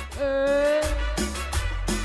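Cumbia music played loud over a sonidero sound system: heavy bass and a steady percussion beat, with a single held note that starts just after the beginning and lasts about a second.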